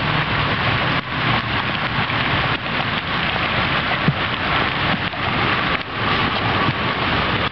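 Rain falling steadily, a continuous dense hiss.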